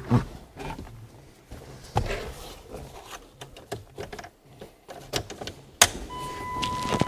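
A car key rattling and clicking as it is handled and put into the ignition, with one sharp click about six seconds in. Right after that click, a steady electronic warning tone starts and holds.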